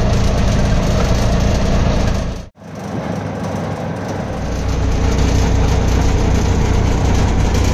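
Auto-rickshaw engine running, with road noise, heard from inside the open cab while riding. The sound drops out for an instant about two and a half seconds in, then carries on.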